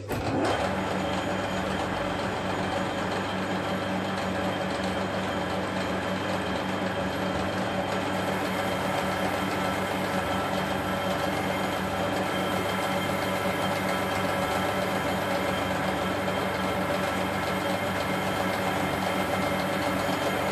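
Metal lathe running steadily while a hole saw bores out the centre of a metal plate, a fast rattle over the machine's hum. It is a rough cut: there is too much friction at the hole saw's edge.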